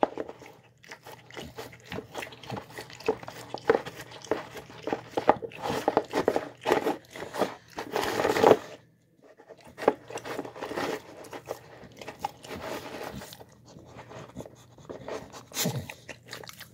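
A dog eating soft food from its bowl: irregular wet chewing, smacking and licking noises, with a brief pause about nine seconds in.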